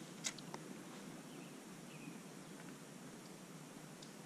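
Quiet outdoor ambience: a low, even background hiss, with one sharp click a fraction of a second in and two fainter ticks just after.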